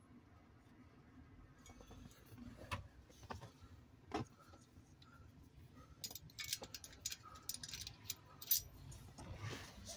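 Faint, uneven metal clicks and clinks with a couple of sharper knocks, from hand tools and a spark plug being worked into a van engine; a short rustle near the end.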